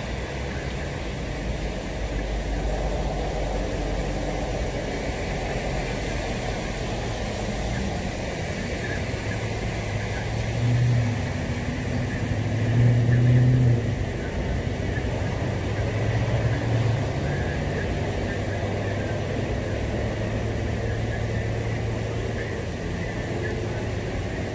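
Steady noise of heavy rain and wind, with cars driving by on a wet road; the hum of passing engines swells several times, loudest about halfway through.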